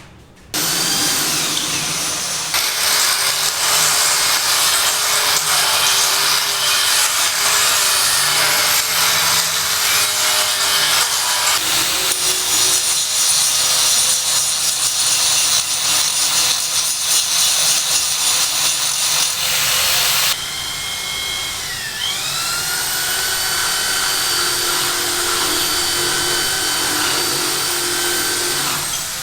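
Electric power tool running under load, cutting, in several abruptly joined stretches. Near the end its motor whine drops and then climbs back up as it spins up again.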